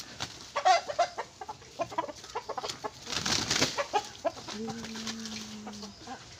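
Two roosters fighting: clucking calls and sharp short knocks from the scuffle, with a burst of rushing, flapping noise about three seconds in. A steady low hum runs for about a second and a half near the end.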